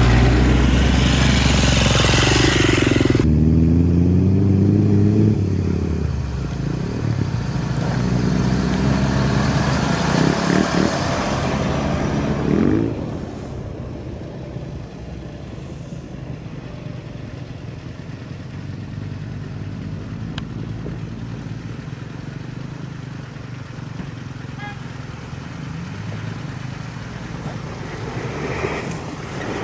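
A GAZ-66 army truck's engine passes close by, loud and falling in pitch as it goes past. A dirt bike's engine follows, rising and falling in pitch as it rides by. About halfway through this drops to the quieter, steady running of several off-road vehicles on the track, with a Suzuki Samurai coming nearer at the end.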